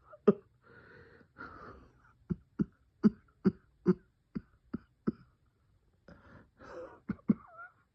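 A person coughing through a bronchospasm: a fit of short coughs about two a second, with breaths drawn in between. There is a longer pause for breath around six seconds in, then two more coughs near the end.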